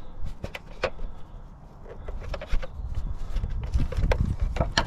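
Scattered clicks, taps and scrapes of a screwdriver working at the plastic retaining tabs of a cover under the car, over low rumbling handling noise that grows louder in the second half.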